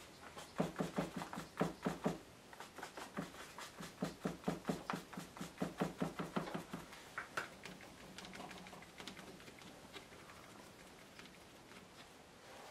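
Quick, even dabbing taps of a paintbrush working dark paint, about five a second, stopping about seven seconds in.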